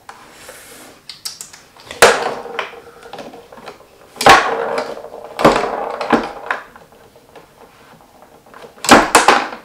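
Tabletop foosball in play: sharp, irregular clacks and rattles as the plastic players strike the ball and the rods knock against the wooden table, loudest about two and four seconds in and twice in quick succession near the end.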